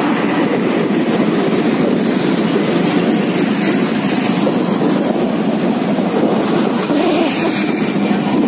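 Steady rush of wind and road noise while riding a motorbike along a road, with no clear engine note standing out.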